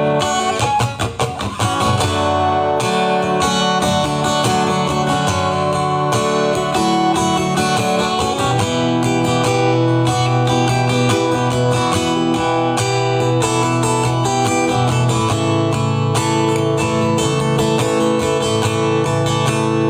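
Acoustic guitar strummed, playing an instrumental break in a ballad.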